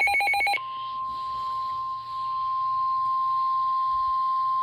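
The tail of a fast, buzzing SAME digital header burst, then from about half a second in the NOAA Weather Radio 1050 Hz warning alert tone: one steady, unbroken beep. The tone signals that a warning broadcast is about to follow.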